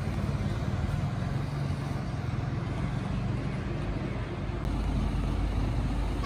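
Heavy diesel truck engines rumbling steadily as fire engines drive out onto the road, growing a little louder near the end.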